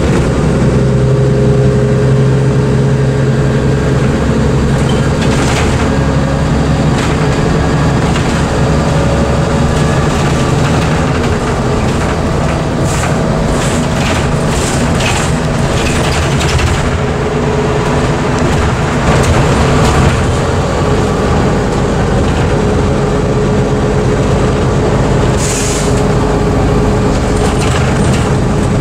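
Interior of a Modulo M108d city bus on the move: the engine running steadily under road and tyre noise, with the cabin fittings clicking and rattling now and then, in a cluster about halfway through and once more near the end.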